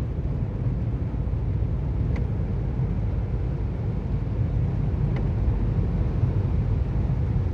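Steady low rumble of road and engine noise inside a car's cabin while driving through standing floodwater, with a faint tick about every three seconds.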